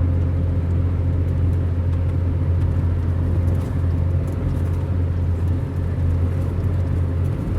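Steady low rumble of a car, heard from inside the cabin, with a faint steady hum above it.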